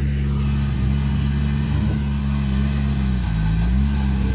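Off-road vehicle engines running hard under load during a tow recovery of a Land Rover Discovery stuck in sand. The pitch sags and climbs back about three seconds in.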